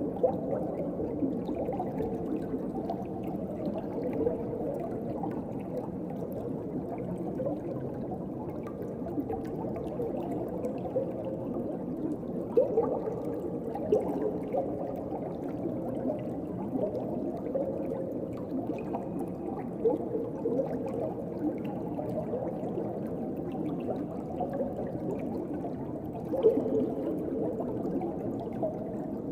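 Underwater ocean ambience: a steady, muffled, low-pitched wash of water with small gurgling bubbles throughout and a few brief louder bubble bursts, one near the end.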